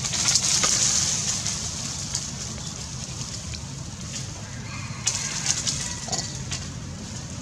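Outdoor background noise: a steady low rumble with rustling hiss and scattered clicks, louder in the first second and again about five seconds in, and a short animal call about six seconds in.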